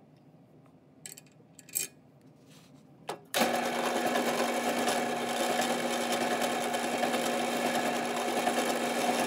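A few light knocks, then about a third of the way in a drill press is switched on and runs with a steady motor hum while a half-inch Forstner bit bores down into pine boards.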